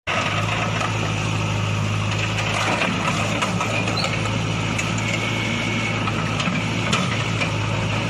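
JCB backhoe loader's diesel engine running steadily while its bucket crushes a tractor, with a few scattered knocks and crunches of metal.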